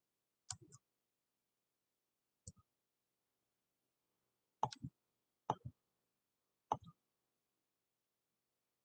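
Computer mouse and keyboard clicks, five in all, spaced irregularly over several seconds. Each is a sharp click followed a moment later by a duller knock.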